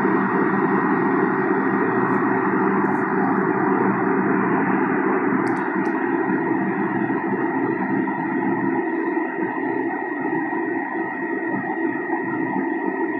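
Subway car standing at a station with its doors open: steady hum of its on-board equipment with a thin high whine, and a few faint clicks about 2 and 5½ seconds in.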